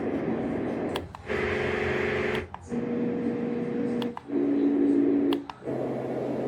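LectroFan Evo white noise machine being stepped through its sound presets: short stretches of steady noise, each with a different colour and some with a steady low hum like a fan. Each stretch is cut off after a second or so by a brief dip and a click as the next sound starts.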